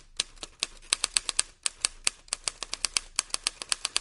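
Manual typewriter typing: keys struck in quick irregular runs of sharp clicks, with brief pauses between runs.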